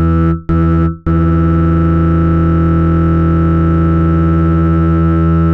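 Synthesized low buzzing tone built on 165 Hz and its octaves, made to vibrate a wet phone speaker so that it pushes the water out. It pulses about twice a second at first, then from about a second in it holds steady.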